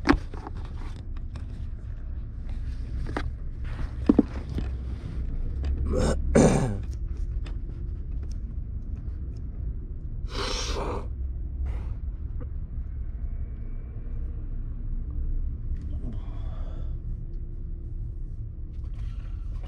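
Knocks, clicks and scraping of a hand handling the camera and things close to it, over a steady low rumble. There are sharp knocks right at the start and around four seconds in, and short louder rushing noises around six and ten seconds in.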